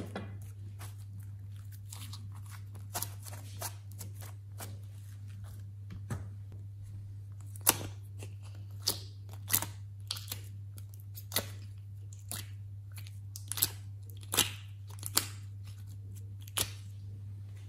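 Small plastic clay containers being handled and emptied by hand: scattered sharp clicks and taps, most of them in the second half, over a steady low hum.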